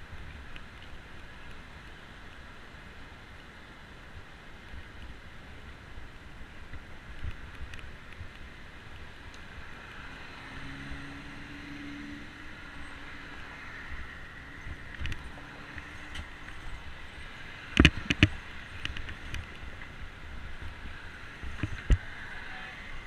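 Steady traffic noise from the adjacent highway and wind on the camera microphone, heard from a bicycle riding along a path, with a brief low hum about halfway through. A cluster of sharp knocks about three-quarters of the way in and another near the end.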